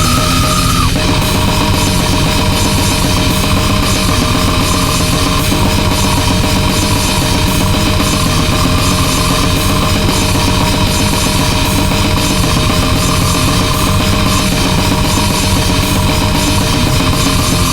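Grindcore music: fast blasting drum kit under dense distorted guitars, with a held high guitar note, stopping abruptly at the end.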